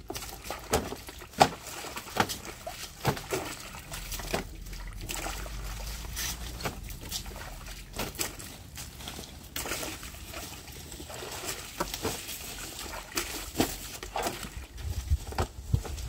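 Water sloshing and dripping as hands of green bananas are swished in a drum of wash water and lifted out into a plastic-lined crate, with irregular splashes and sharp clicks.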